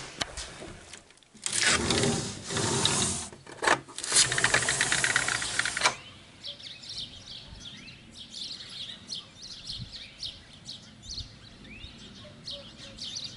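Loud rubbing and scraping of the camera being handled with its lens covered, stopping suddenly about six seconds in. After that, small birds chirp repeatedly over a faint outdoor background.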